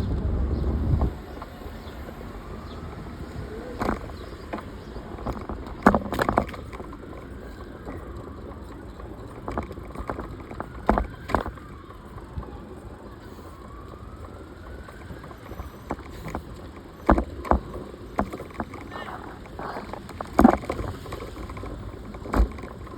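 City street ambience: a vehicle passes loudly and fades out about a second in. After that comes a steady background of traffic with scattered sharp clicks and knocks, and a faint tone that slowly rises and falls several times.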